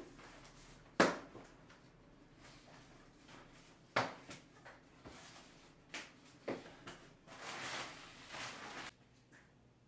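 Kitchen handling sounds: several sharp knocks a second or two apart, then about two seconds of steady rushing noise near the end.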